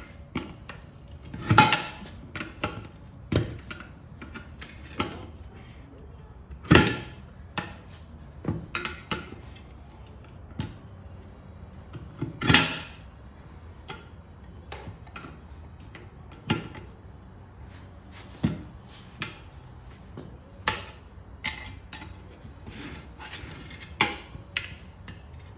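Irregular metallic clanks and knocks as a maul and a long screwdriver pry at and strike the bead of an old tire on a small tractor's wheel rim. Three heavier blows stand out, about five seconds apart.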